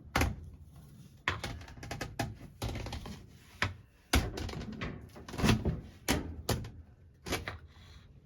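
Irregular knocks, bumps and scrapes as a clothes dryer is pushed back toward the wall, about ten sharp knocks spaced unevenly.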